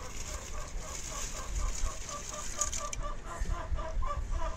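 Soaked, drained rice poured from a bowl into a pot of boiling broth, a hiss that stops about three seconds in. Throughout, a bird calls nearby in a quick, even run of short notes, about five a second.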